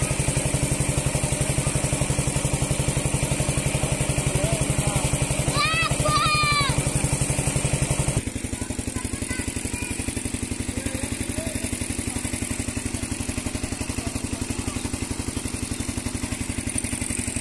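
Engine-driven water pump running steadily with an even, rapid chugging. A voice calls out briefly about six seconds in, and the engine sound drops a little in level about eight seconds in.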